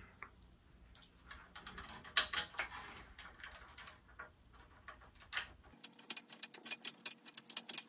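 Small metal screws and a metal brake caliper adapter handled by hand: scattered light metallic clicks and taps. A quicker run of clicks comes near the end.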